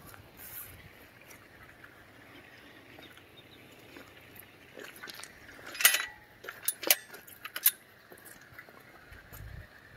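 Chain-link gate and its metal latch clicking and clanking several times in quick succession, the loudest clank about six seconds in, against a low outdoor background.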